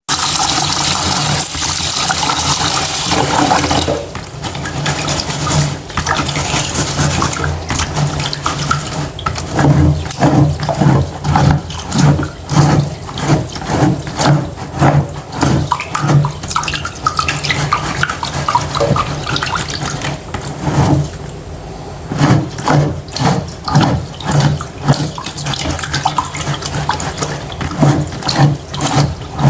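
Water from a tap running into a pot of rice for about four seconds, then hands swishing and rubbing the rice grains in the water to wash them, in a steady rhythm with a short pause near the end.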